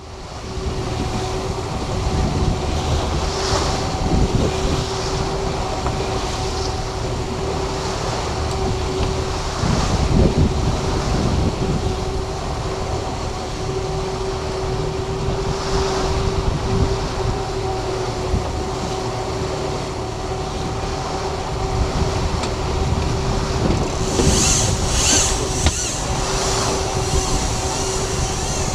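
A boat's motor running steadily at a constant pitch, with wind buffeting the microphone and water rushing past the hull.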